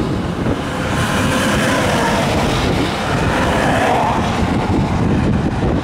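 Semi trucks passing on a highway: steady tyre and engine noise from the traffic, swelling as a tractor-trailer goes by about midway.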